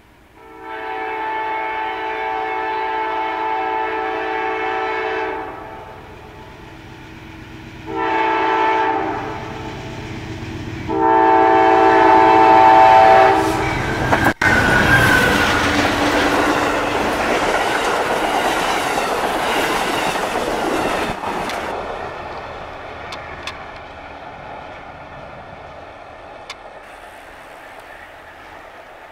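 Amtrak GE Genesis diesel locomotive's multi-note air horn sounding for a grade crossing: a long blast, a short one, then a long one. The train then passes close by with a loud rush of engine and wheel noise and clickety-clack over the rail joints, and fades as it pulls away.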